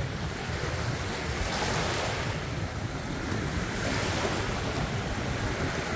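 Small waves washing in over a shallow pebbly shore, the wash swelling a couple of times, with wind rumbling on the microphone.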